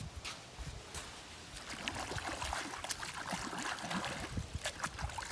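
Water pouring and trickling over a sand-fouled Glock 48 pistol as it is rinsed out to clear the grit that jammed it, growing louder about two seconds in, with small scattered clicks.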